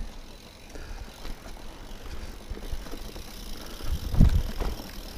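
Mountain bike rolling over a rocky dirt and slickrock trail: a steady low rumble of tyres with rattle and small knocks. A louder low thump comes about four seconds in as the bike rolls onto bare rock.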